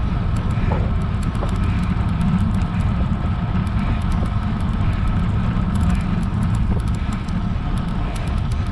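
Steady wind and road rumble on a road bike's action camera during a climb, with faint high ticks now and then.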